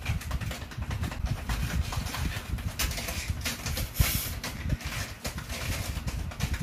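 A hand patting a cat's lower back in quick succession: a steady run of soft, low thumps, with a few sharper pats standing out.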